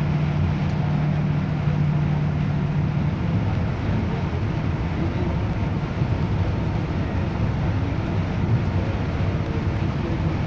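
Yutong coach driving in heavy rain, heard from inside the cabin: engine drone over a steady hiss of rain and wet-road noise. A steady low hum breaks up about three seconds in into a rougher, uneven drone.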